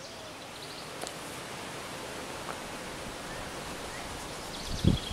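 Steady outdoor background hiss with faint rustling, a few faint high chirps, and a single low thump just before the end.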